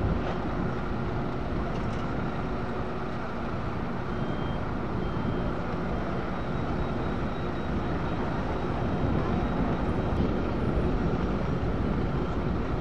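Road-paving machinery running steadily: the diesel engines of an asphalt paver and the tipper truck feeding it asphalt, a continuous low rumble that grows a little louder in the second half. A couple of faint short beeps sound near the middle.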